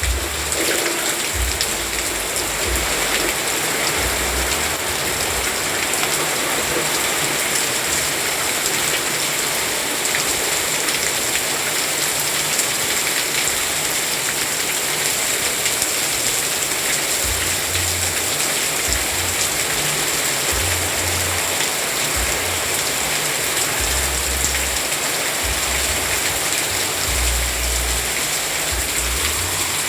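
Steady rain falling, a dense, even hiss of drops that does not let up, with a low rumble coming and going underneath.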